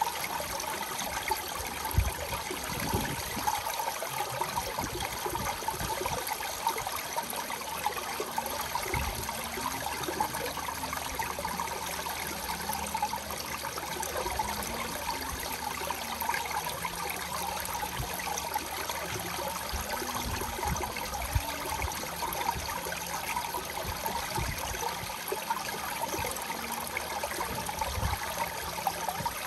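Water spilling down the edge of a ridged stone water-wall and splashing onto smooth pebbles and a drain grate: a steady trickling splash, with a few soft low bumps.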